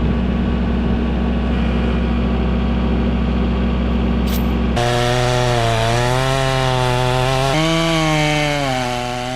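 Chainsaw bucking the felled madrone trunk. A steady engine note gives way abruptly, about five seconds in, to a lower, wavering note as the chain bites under load, with another sudden shift in pitch about two and a half seconds later.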